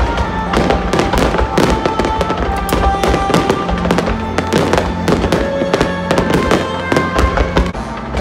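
Aerial fireworks going off in quick succession, many sharp bangs and crackles overlapping, over music with long held notes and a steady bass.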